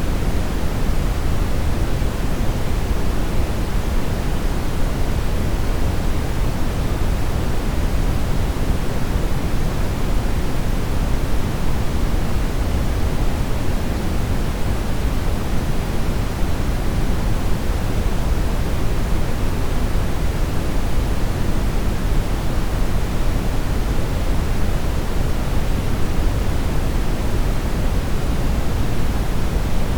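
Television static: a steady, loud hiss of noise with no signal, heavier in the low end, unchanging throughout.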